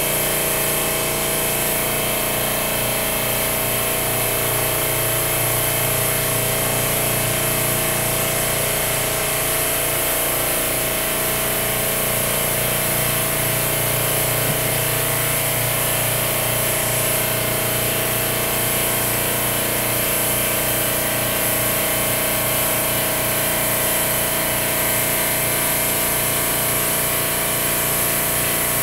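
Harbor Freight double-action, suction-feed airbrush spraying paint with a steady hiss of air, over the constant hum of a running air compressor.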